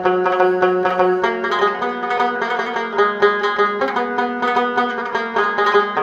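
Background music: a plucked string instrument playing quick repeated notes over held lower notes.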